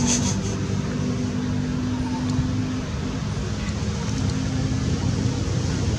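A motor running steadily: a low rumble with a steady hum.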